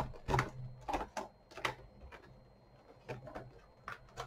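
Hands unwrapping and handling a small cosmetic item and its packaging: a run of short clicks and rustles, busiest in the first two seconds, then a few scattered ones.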